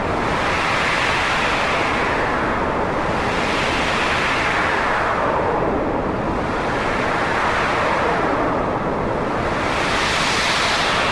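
Wind blowing steadily, a continuous rushing hiss whose pitch rises and falls slowly, about every three to four seconds, as it swells and eases.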